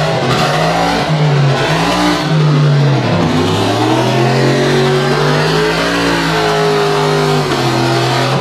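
Lifted monster-tire pickup truck's engine revving hard under full throttle in mud. The pitch drops and climbs several times in the first three seconds, holds high for about four seconds, then falls near the end.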